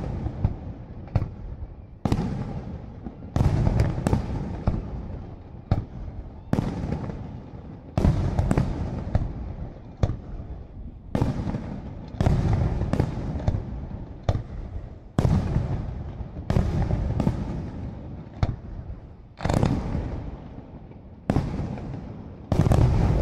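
Aerial firework shells bursting one after another in a steady barrage, a sharp bang about every second. Each bang trails off in a rumbling decay before the next.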